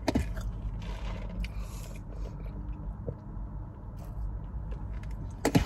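A person chewing a mouthful of burger, with small wet mouth clicks and a louder burst of smacking near the end, over a steady low hum.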